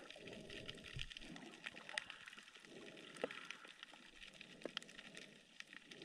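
Faint water noise heard underwater while snorkeling, with many scattered sharp clicks and crackles.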